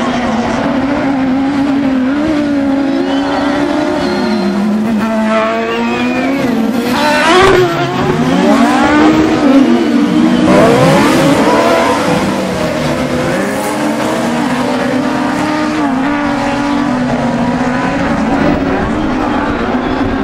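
A pack of 1600-class autocross buggies racing on a dirt track, their engines holding a steady high-revving drone. From about seven to eleven seconds in, buggies pass close and it gets louder, the engine notes rising and falling as they go by.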